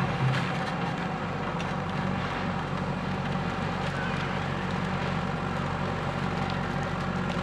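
JCB 3DX backhoe loader's diesel engine running steadily under work, with a few light cracks and clicks over the drone.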